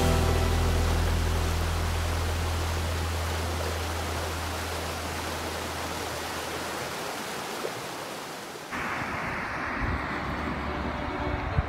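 Shallow river rushing steadily over rocks, slowly fading, while a low held music note dies away under it over the first several seconds. About two-thirds of the way through, the sound cuts suddenly to a duller, steady outdoor hiss.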